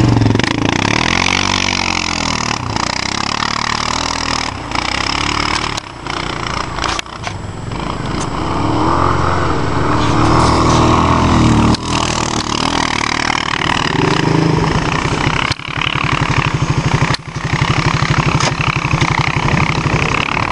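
ATV engines running in snow: the Suzuki KingQuad 700 revs up and down as it drives past and away, and from about two-thirds of the way in a nearby ATV's engine idles with a steady low chug. A few sharp knocks come through along the way.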